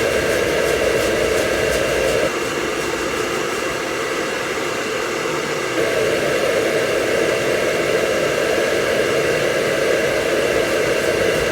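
Hair dryer blowing steadily, a rushing of air with a faint motor whine. The air noise drops somewhat about two seconds in and comes back to full strength about six seconds in.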